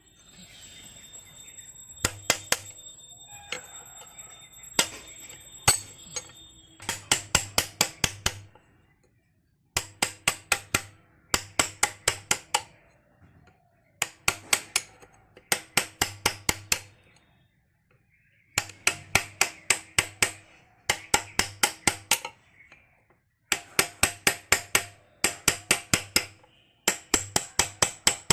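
Hammer striking metal in quick runs of about five to seven sharp blows, with short pauses between runs, the metal ringing faintly under the blows.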